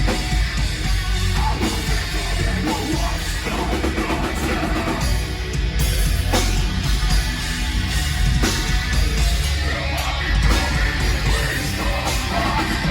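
Heavy metal band playing live: distorted electric guitars and a drum kit, with yelled vocals. The sound is loud and steady, with sharp drum hits.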